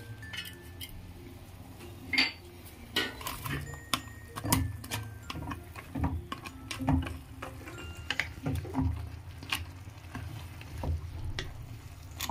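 A spatula stirring and tapping in a non-stick pan of boiling water with dry instant-noodle pieces, making irregular clicks, knocks and scrapes. A steady low bubbling runs underneath.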